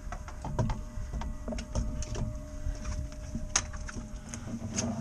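Irregular clicks and knocks of fishing gear being handled aboard a small fibreglass dory, over a steady low rumble, with a sharper knock about three and a half seconds in.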